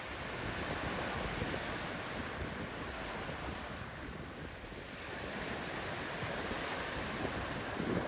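Sea waves washing on a sandy beach with wind buffeting the microphone: a steady rush that swells and eases, dipping slightly around the middle.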